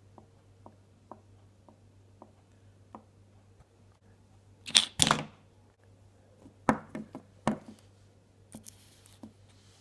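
Small plastic toy figures handled on a wooden tabletop: a short burst of rustling about five seconds in, then a few sharp knocks of plastic on wood. Faint ticks, about two a second, in the first few seconds.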